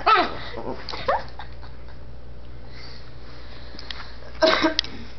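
Small dogs play-fighting: short whining cries in the first second or so, then a quick run of sharp yaps about four and a half seconds in.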